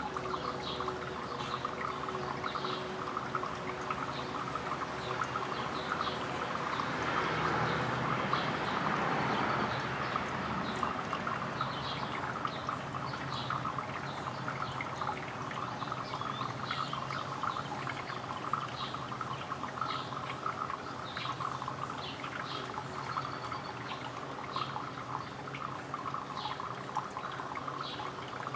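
Birds chirping briefly and often over a steady background noise.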